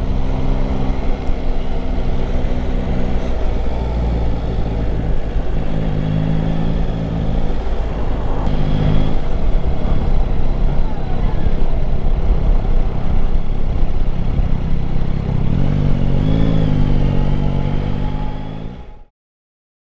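Yamaha Tracer 9 GT's three-cylinder engine running at low speed, with wind noise on the microphone. Its note rises and falls a few times, and the sound fades out near the end.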